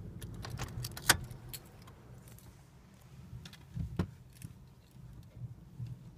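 Wesumat soft-wash rollover car wash heard from inside the car: a low steady hum of the machinery, with a scatter of sharp clicks and taps as water sprays onto the windscreen and bodywork. The taps are thickest at the start, with a loud one about a second in and another around four seconds.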